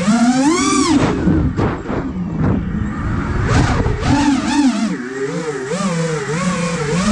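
The four brushless motors of an iFlight Nazgul Evoque F5 5-inch FPV quadcopter whining, their pitch rising and falling with the throttle. There is a sharp climb in pitch about a second in.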